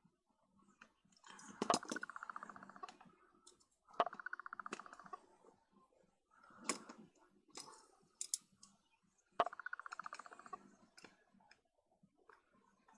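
Small lens parts being handled on a bench: sharp clicks and knocks, with about four short runs of fast, fine rasping ticks, each lasting a second or so.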